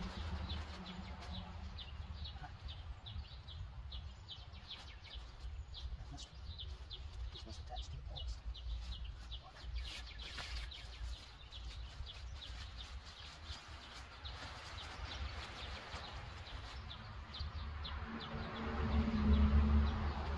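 A songbird chirping in a rapid series of short high notes, about three a second, over a low outdoor rumble. There is a brief rustle about ten seconds in and a louder low hum about nineteen seconds in.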